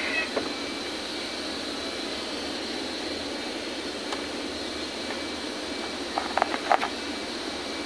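Steady mechanical whir and hiss with a faint high whine. A few light clicks and taps come about six to seven seconds in, as hands touch the overlock machine.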